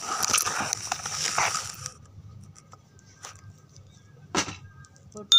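A rushing, rustling noise close to the phone's microphone for about two seconds, then quiet with a few soft clicks and one short knock. Right at the end a Balinese priest's hand bell (genta) starts ringing with bright, steady tones.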